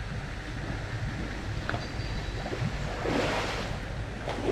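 Wind rumbling on the microphone outdoors, with a brief swell of hissing noise about three seconds in.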